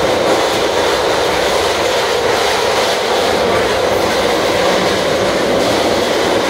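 SEPTA subway-surface trolley running through the tunnel, heard from inside the car: a steady, loud rumble of wheels on rail and traction equipment, with no stops or changes.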